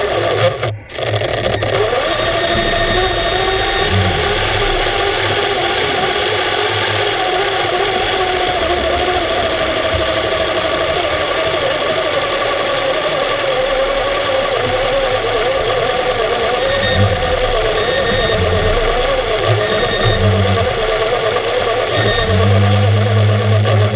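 Steady machinery hum heard underwater, with a whine whose pitch wavers up and down. It cuts out briefly about a second in, and a lower steady hum joins near the end.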